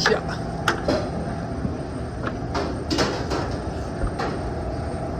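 Several knocks and rattles, as of equipment being handled, over a steady machine hum.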